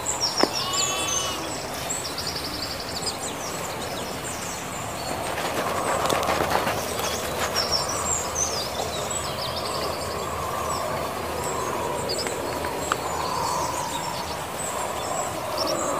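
Outdoor rural ambience: several small birds chirping and singing in short repeated phrases over a steady background noise.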